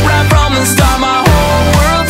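Upbeat background music with a steady kick-drum beat.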